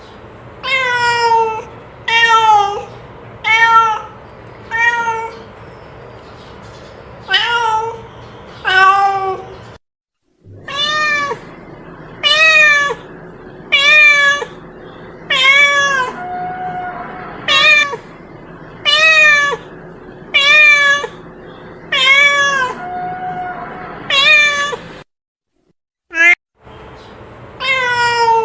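Domestic cat meowing over and over, about one short meow a second, each call rising then falling in pitch.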